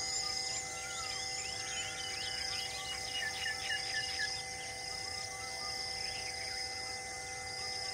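Wild birds chirping and calling over a steady insect buzz, with a quick run of four notes about three seconds in.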